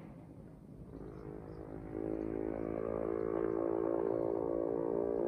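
A steady, pitched engine drone that grows louder about two seconds in and holds.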